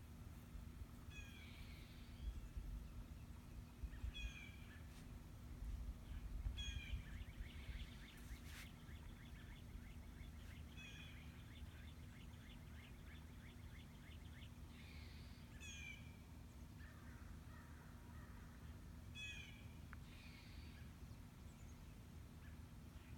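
Faint bird calls outdoors: a short call repeated every three to four seconds, and a long rapid rattle from about 7 to 14 seconds in. Low gusts of wind rumble on the microphone in the first several seconds.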